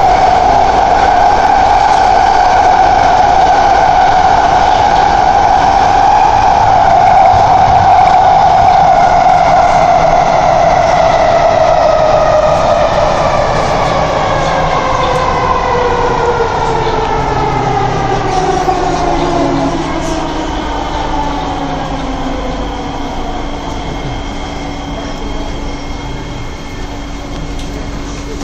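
Electric traction whine of an SMRT C151A metro train heard from inside the car: a steady pitched hum with several overtones that, from about twelve seconds in, glides steadily downward as the train brakes for a station, the running noise fading with it.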